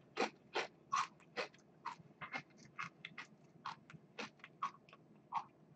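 A potato chip being chewed, crunching in the mouth at about two crunches a second; the crunches grow fainter and sparser near the end.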